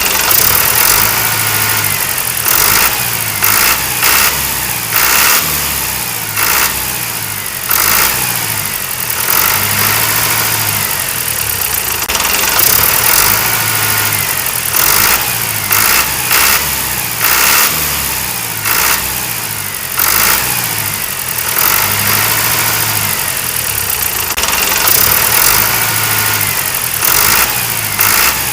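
A small engine running unevenly, rising and falling in pitch, with short sharp clanks every second or two.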